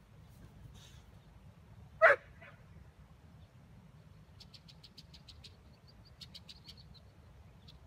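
A Boxer dog gives a single short bark about two seconds in. Faint, rapid high chirps, about eight a second, come in two short runs in the second half.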